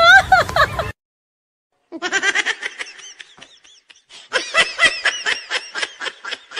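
A voice cuts off after about a second, then comes a second of silence. From about two seconds in, a person laughs hard in a long, rapid run of high-pitched laughs.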